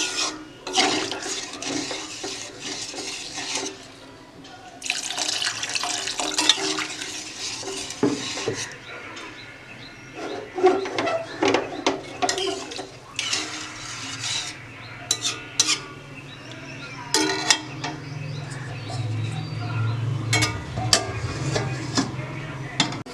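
Water splashing and pouring during kitchen work, with pots and utensils clattering and knocking now and then.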